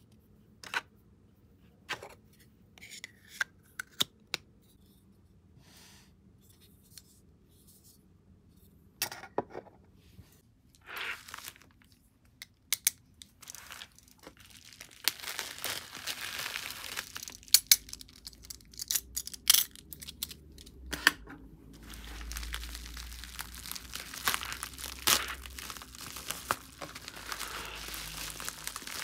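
A few separate sharp clicks from a small plastic lip balm tube being handled. Then, from about halfway, a padded plastic bubble mailer is torn open and crinkled by hand in a long run of crackling and ripping.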